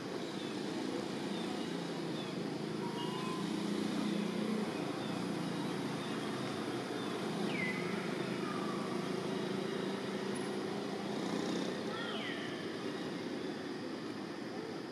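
Steady low outdoor rumble, like distant engine or traffic noise, with a few faint high chirps that fall in pitch, the clearest about seven and a half and twelve seconds in.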